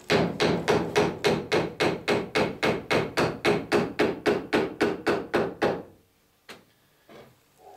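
An even run of about twenty sharp strikes of a hand tool on a wooden boat knee, roughly three a second. The knee is being trimmed by a millimetre or so to fit under the gunwale. The strikes stop about six seconds in, followed by a couple of faint knocks.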